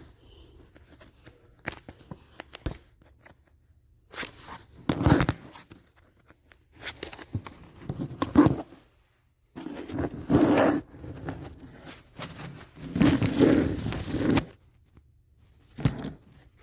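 Hands pulling at the plastic air filter housing of a truck engine bay, making scraping, rustling and clicking sounds. These come in four bursts of a second or two each, after a couple of sharp clicks in the first few seconds.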